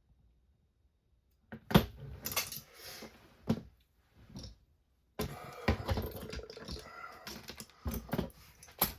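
Small hard parts and tools being handled on a workbench: sharp clicks and clinks with rustling, starting after a moment of quiet and growing busier for the last few seconds.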